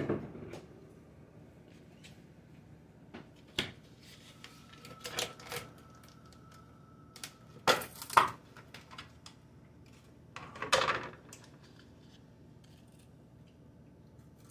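Scattered clinks and knocks of someone getting ice out, hard objects handled and set down a few seconds apart. The loudest pair of knocks comes about eight seconds in, and a faint steady tone sounds for a few seconds in the middle.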